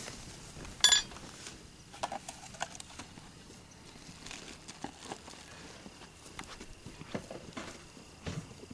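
Handling and rustling noises in dry grass and dirt, with a sharp metallic-sounding clink about a second in followed by scattered small clicks and scuffs.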